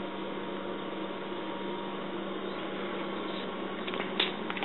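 Steady indoor hum and hiss of room noise, with a few soft clicks near the end.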